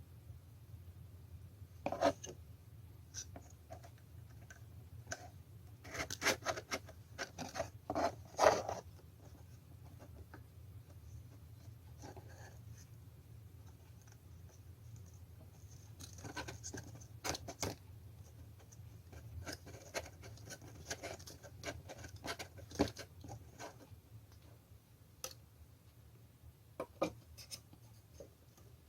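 Hands handling small computer parts: scattered clicks, taps and scratching in short clusters over a steady low hum.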